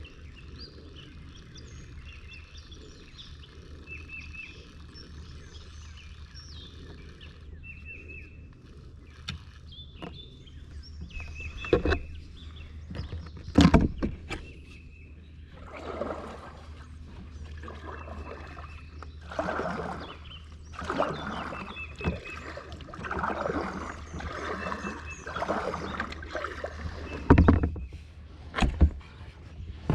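Kayak paddle strokes swishing through the water, one about every second and a half in the second half, with a few sharp knocks. In the first part, insects and birds chirp steadily.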